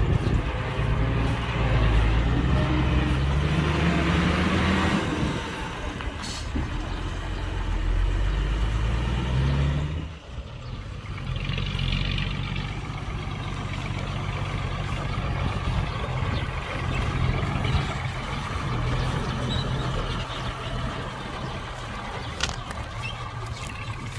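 Heavy diesel engine running under load, its pitch rising twice in the first half as it revs up. It breaks off abruptly about ten seconds in, then runs on steadily, with a short hiss of air a couple of seconds after the break.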